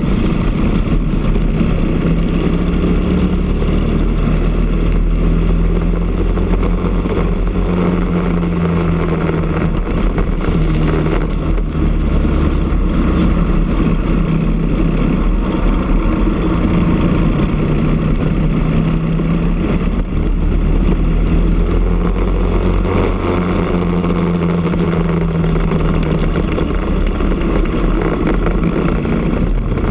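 Briggs & Stratton LO206 kart's single-cylinder four-stroke engine running at racing speed, heard from on board the kart. Its pitch rises and falls gently several times as the kart brakes and accelerates through the corners.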